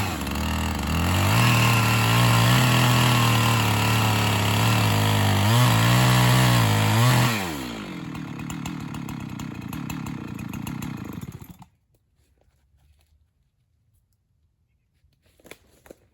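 Chainsaw cutting at full throttle, its pitch dipping a few times under load, then dropping to idle about eight seconds in and shutting off a few seconds later. A few faint cracks and rustles near the end.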